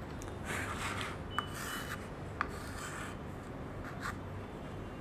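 Chalk and cloth rubbing on a small school slate: scratchy strokes of writing and wiping, with a brief squeak and two sharp taps about a second apart.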